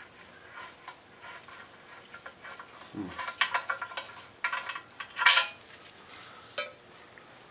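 Metal hand tools and engine parts clinking and clattering against each other in short irregular knocks. There are a few light clicks at first, then a busy run of clinks from about three seconds in, the loudest a little after five seconds, and one more knock near the end.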